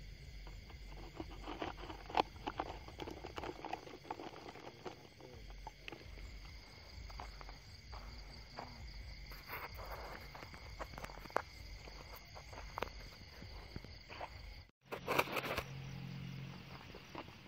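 Steady high chirring of night insects, with footsteps and rustling on a dirt path and a few sharp clicks. The sound cuts out for a moment near the end, then comes back with a louder burst of rustling.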